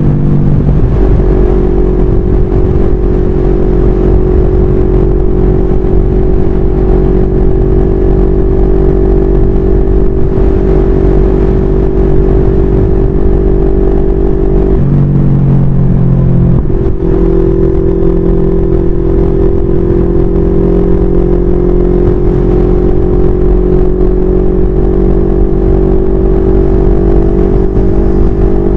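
CFMoto 400NK's 400 cc parallel-twin engine running steadily at cruising speed, with low wind rumble on the microphone. About halfway through, the engine note dips for a second or two, then steadies again.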